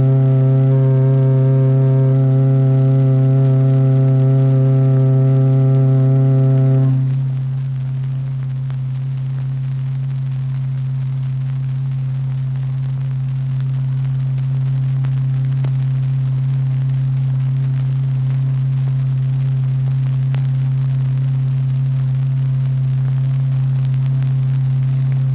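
Steady low tone sounding from the vibrating membrane whose waves heap a plastic paste into spheres. At first it is rich in overtones, somewhat buzzy; about seven seconds in the upper overtones fall away and it becomes a plainer, slightly quieter hum.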